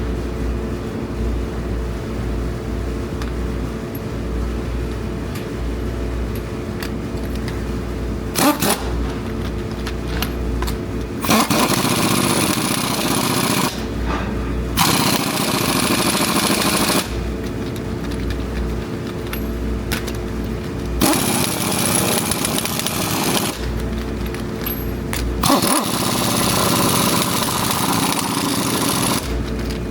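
A vehicle engine idling steadily, broken by four louder stretches of rushing, hissing noise that last a few seconds each.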